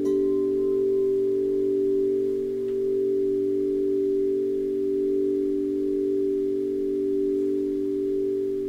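Grace Note tuned tubular wind chimes struck with a mallet. Several low notes ring on together and waver slowly in loudness, and a fresh strike right at the start adds a higher note that fades over a few seconds.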